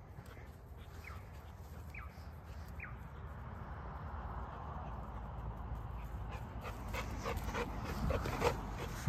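Blue Staffy (American Staffordshire terrier) whimpering: a few short high whines that fall in pitch, then a run of quick breathy sounds close up, loudest near the end.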